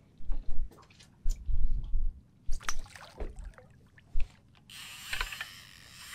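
A hooked small-eyed ray splashing at the surface beside the boat near the end, a rush of water noise lasting almost two seconds. Before it, a string of low bumps and a few sharp clicks as the rod and reel are worked.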